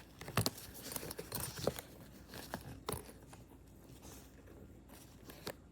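Clicks, knocks and scrapes of a hard-shell plastic carry-on suitcase being handled, with a few sharper knocks in the first three seconds.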